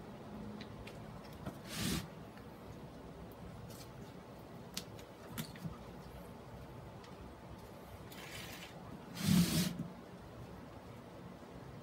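Hand-working noises as fishing line is drawn and wound over sphagnum moss on a fern mount: two short hissing rustles, about two seconds in and again near the end, the second louder, with a few light clicks in between.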